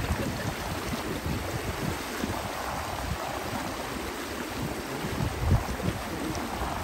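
Running stream water, a steady rushing hiss, with wind buffeting the microphone in low rumbles, strongest about five and a half seconds in.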